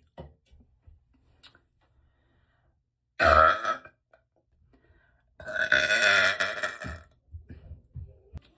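A person burping after drinking Fresca soda: a short burp about three seconds in, then a longer, drawn-out burp lasting about a second and a half.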